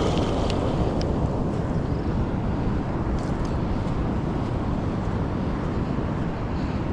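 Wind blowing across the microphone over the steady wash of ocean surf, with a few faint ticks.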